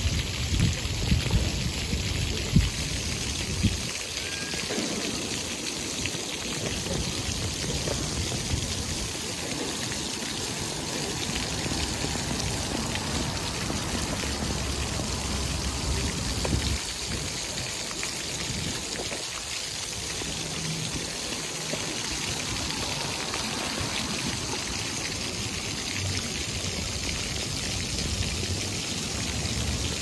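A row of small ground-level water jets splashing steadily back into a shallow fountain pool, a constant pattering of falling water.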